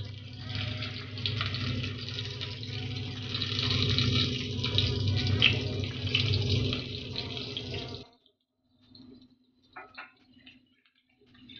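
Boiled small potatoes sizzling and crackling as they fry in hot oil in a steel kadhai. The sizzling cuts off abruptly about eight seconds in, leaving only faint scattered sounds.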